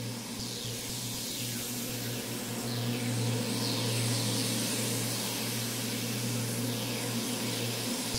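Looping audio clip run through reverb, delay and a grain delay with spray and feedback turned up in Ableton Live, giving a dense, hissy pad over a steady low drone, with short downward swoops about once a second; it sounds like a bunch of buzzing bees. It gets a little louder about three seconds in.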